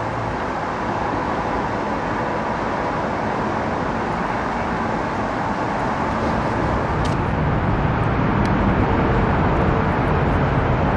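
Steady outdoor road-traffic rumble with no distinct events, growing a little louder in the second half.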